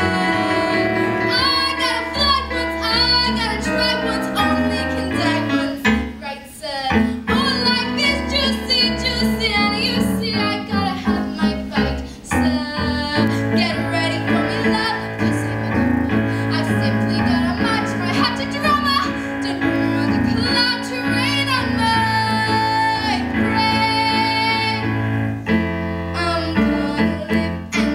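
A woman singing a show tune live with piano accompaniment, belting long held notes.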